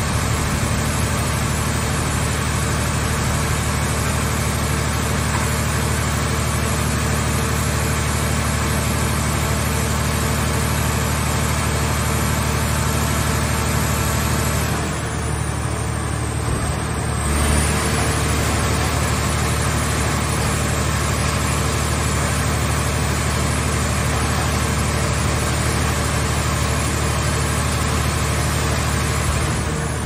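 Car-body baler's hydraulic power unit running with a steady engine hum. About halfway through it eases briefly, then picks up again with a low surge.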